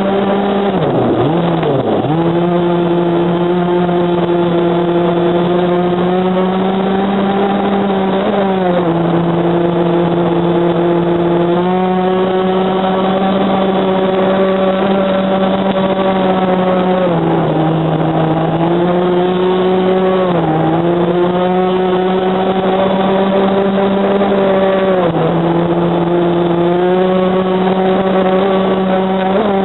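26 cc two-stroke petrol engine of an RC boat heard from on board, running at high revs with a steady high buzz. Its pitch dips briefly and comes back up several times as the throttle is eased and opened again.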